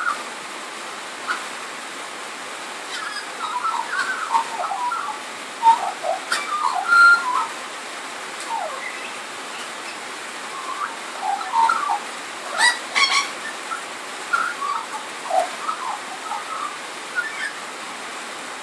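Australian magpie singing a rambling run of short, varied warbles and whistled notes from its repertoire, over the steady hiss of rain on a tin roof. Two sharp clicks come about two-thirds of the way through.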